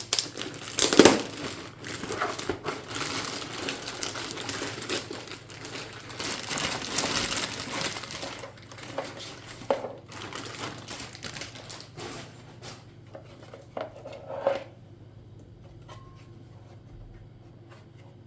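Packaging being handled: crinkling and rustling with sharp knocks, the loudest a thump about a second in. After about twelve seconds it thins to a few separate knocks, then stops.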